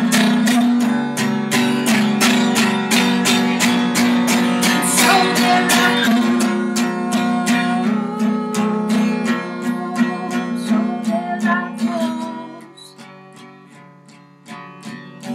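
Acoustic guitar strummed fast and evenly, about four strums a second. About twelve seconds in the strumming stops and gives way to a few softer ringing notes.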